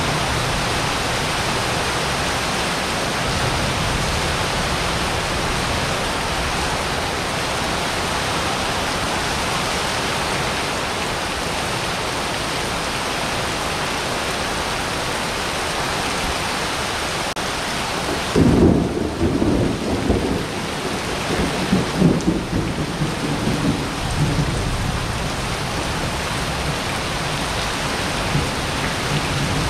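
Heavy rain falling steadily on wet pavement. About two-thirds of the way through, a loud clap of thunder breaks and rumbles on in waves for several seconds before the rain alone is left.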